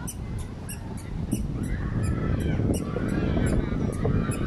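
Birds calling again and again over a steady low rumble, with a run of sharp ticks about three times a second.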